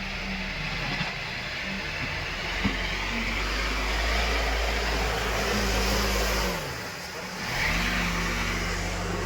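Heavy diesel engine running under load, its revs falling away about two-thirds of the way through and climbing again a second later.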